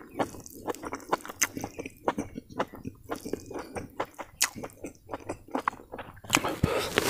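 Close-miked chewing as a person eats mutton curry and rice by hand: wet mouth clicks and lip smacks, several a second and irregular. A louder rushing noise swells up near the end.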